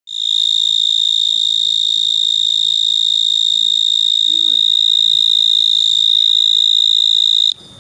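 A large burrowing cricket calling from the mouth of its burrow: one loud, steady, high-pitched song that cuts off suddenly near the end.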